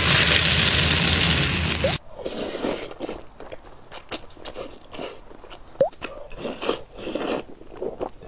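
Hot oil poured over chili flakes and garlic on noodles, sizzling loudly for about two seconds and then cutting off. Close-up eating sounds follow: wide biang biang noodles bitten, slurped and chewed, with scattered wet mouth clicks.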